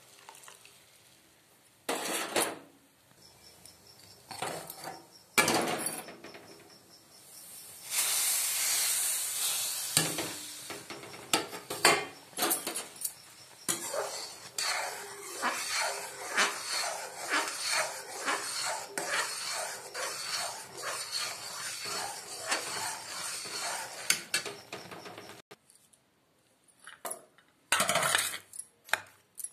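A metal spoon stirring and scraping semolina halwa in a steel pan, clinking against the pan about twice a second. There is a burst of hissing about eight seconds in, and a few separate knocks near the start and near the end.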